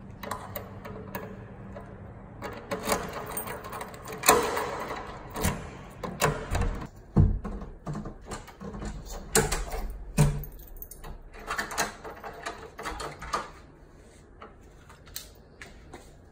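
Irregular clicks, knocks and rustling as a door is opened and handled. The sounds come thickest in the middle and die down to quiet near the end.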